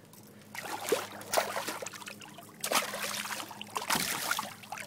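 A hooked muskellunge thrashing at the surface beside the boat: several sudden water splashes spread through the few seconds.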